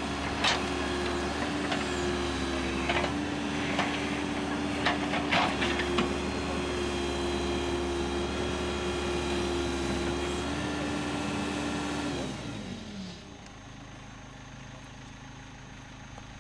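An engine running steadily, with a few sharp knocks in the first half, then winding down with a falling pitch and stopping about thirteen seconds in, leaving a quieter low hum.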